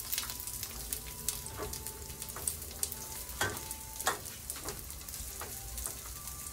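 Already-fried chicken pieces, bell pepper and onion sizzling in oil in a nonstick frying pan, with a steady hiss and scattered crackles and pops as they are turned with tongs.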